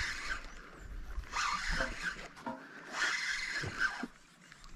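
A spinning reel's drag buzzing in three separate bursts, the last the longest, as a hooked payara pulls line off against the drag.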